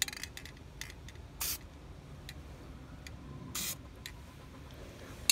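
Aerosol spray paint can hissing in two short bursts, about two seconds apart, as paint is sprayed onto the water for a hydro dip. A few faint clicks come in between.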